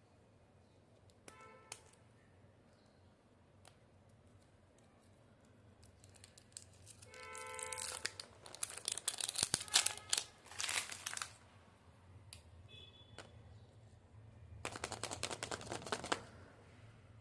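Plastic candy wrapper crinkling and tearing as the packet is opened, in two bouts, the first about eight seconds in and the second near the end, with a short high-pitched squeak just before the first.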